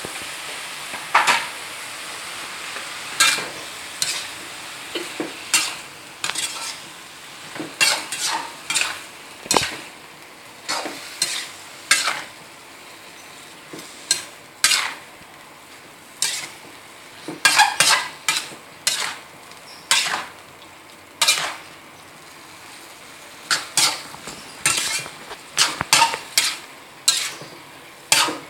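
Metal spatula scraping and knocking against a wok in irregular strokes as mushrooms and chillies are stir-fried, over a steady sizzle of frying.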